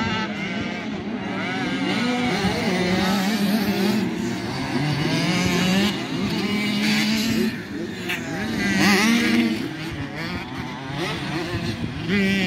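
Several motocross dirt bike engines revving up and down around the track, their pitches overlapping and rising and falling as the bikes accelerate and back off, with one strong rising rev about nine seconds in.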